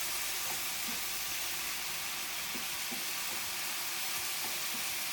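Okra frying in a pan, a steady sizzling hiss, with a few light knocks.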